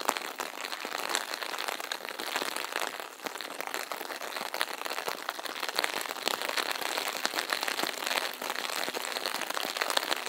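Steady rain falling, a dense patter of many small drop ticks.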